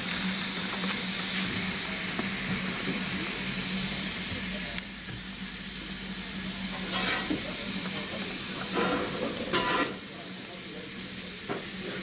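A steam locomotive hissing steam, a loud steady hiss over a low hum, that cuts off suddenly about five seconds in. After that the background is quieter, with a few short bursts of distant voices.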